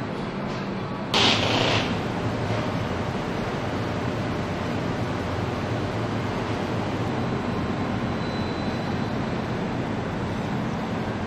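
Car assembly plant floor noise: a steady machinery hum and rush, with a short loud hiss about a second in.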